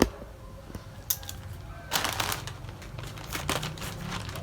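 Parcel packaging rustling and crinkling as it is handled and opened, in irregular crackles and clicks that grow busier about halfway through.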